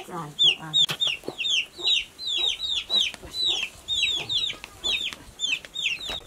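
Young chickens peeping over and over, each peep a short high falling whistle, several a second, with a lower clucking call near the start.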